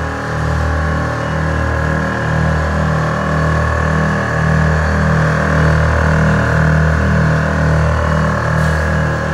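Loud music with a steady bass beat and sustained chords.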